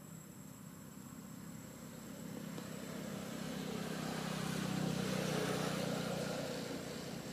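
A motor vehicle passing by: a low engine hum swells to a peak about five seconds in, then fades away.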